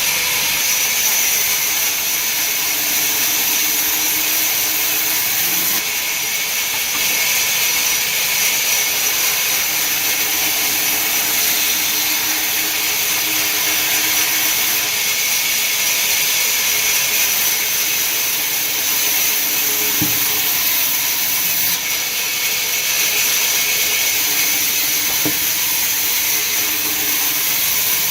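Heavy wood-cutting machinery running with a steady, loud, high hiss, changing abruptly a few times.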